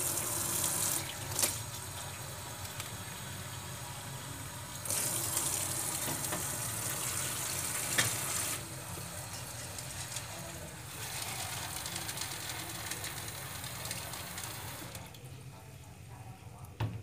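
Kitchen tap turned on and running, water splashing into a stainless steel sink and a metal colander. The flow grows louder and softer a few times, with two sharp clicks, and stops about two seconds before the end.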